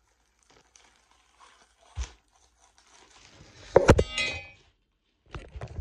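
The phone recording the video tips over and falls just before four seconds in: a loud knock and a brief ringing clatter, picked up through the phone's own microphone. A softer thump comes about two seconds in, and handling rustle near the end.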